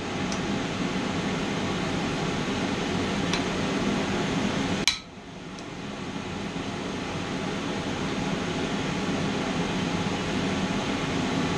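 Forge blower running with a steady rushing hum, broken by one sharp metallic strike about five seconds in and a couple of faint clinks.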